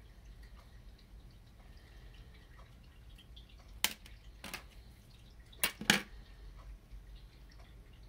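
Light handling knocks on a wooden tabletop: four short sharp taps, one about four seconds in, another half a second later, and two close together near six seconds, over a faint low room hum.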